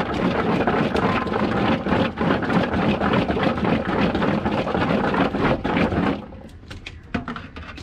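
Water pouring and splashing through a large perforated aluminium colander into a basin below, a dense splashing that stops abruptly about six seconds in.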